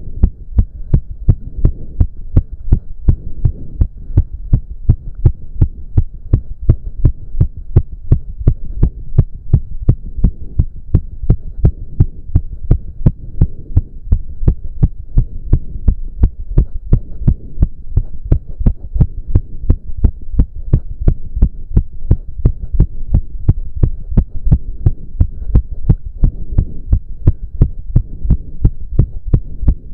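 A man's heartbeat heard at the chest, racing and pounding in a fast, even rhythm after intense cardio exercise.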